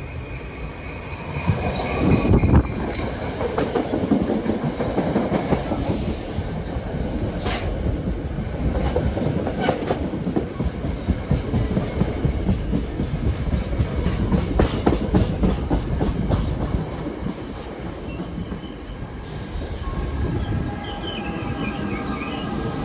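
NJ Transit electric push-pull commuter train passing close by: steel wheels rumbling over the rails with rhythmic clicking, growing loud about two seconds in as the cars reach the spot and staying loud while the coaches and then the pushing electric locomotive go past.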